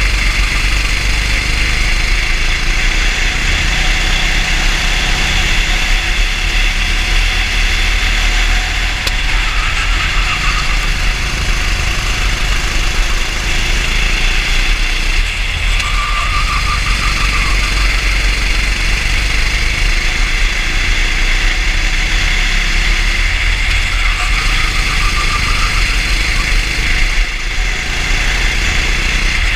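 Racing kart engine running continuously at speed, heard from an onboard camera mounted on the kart, with rushing wind noise. The sound stays steady throughout, and a faint higher tone comes and goes a few times.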